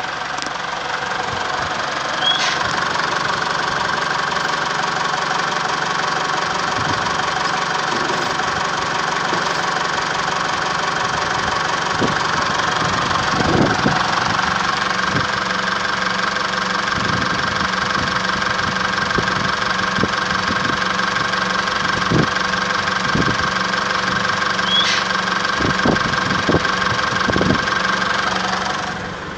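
2011 Holden Colorado's 3.0-litre four-cylinder turbo-diesel idling steadily, with a steady high whine over the engine note. It gets quieter near the end.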